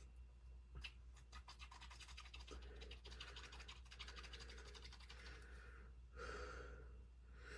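Faint scratching with many light, quick clicks: small shock parts being handled at a workbench.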